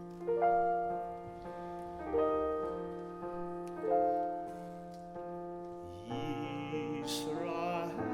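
Piano playing the introduction to a song, slow chords struck about every two seconds; near the end the accompaniment fills out and a singer's voice comes in.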